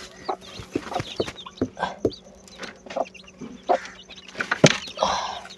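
Hen clucking, among scattered short, sharp taps.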